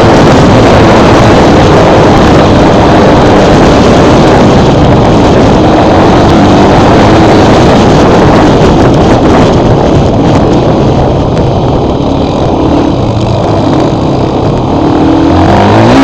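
Quad bike engine running under throttle on a dirt trail, very loud and overdriven. It eases off a little past the middle and revs up again near the end.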